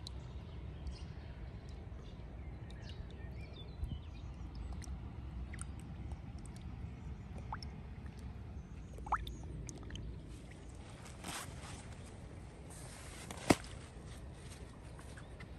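Quiet wet handling sounds of a carp sling and lake water: drips, squelches and small splashes as a koi carp is lowered into the water, with one sharp knock about 13 seconds in.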